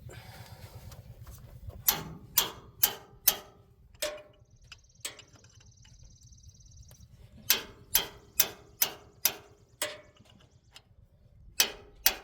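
Hammer blows on a box-end wrench to break a stuck nut loose: sharp metallic strikes that ring briefly. Four come in quick succession, then two single ones, then a run of about six, and two more near the end.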